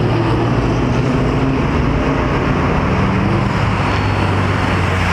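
Car engines running with a steady low drone, mixed with the noise of passing traffic on the road.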